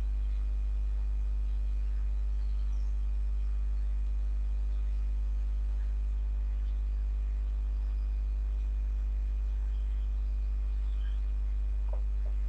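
Steady electrical mains hum, loud at the bottom with a stack of evenly spaced overtones and a faint thin whine above, constant throughout. A few faint, brief marker squeaks on the whiteboard come through over it.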